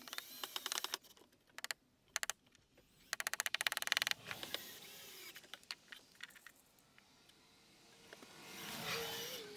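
Two bursts of rapid mechanical clicking from a hand tool working on the frame assembly, one in the first second and a denser, louder one about three seconds in, followed by a few scattered clicks.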